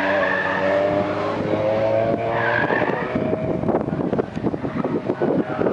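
Volkswagen Scirocco driven hard on an autocross course: the engine pulls steadily under load while the tires squeal through the turns, at the start and again about two and a half seconds in. In the second half the engine note gives way to rougher, crackling noise.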